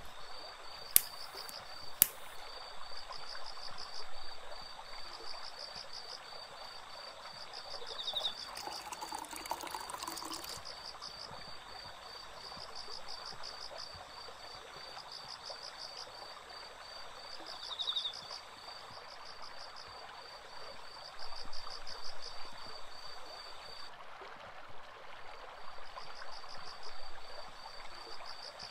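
Mountain stream water trickling and flowing, with insects chirring in rapid even pulses over it. Two sharp clicks sound about one and two seconds in.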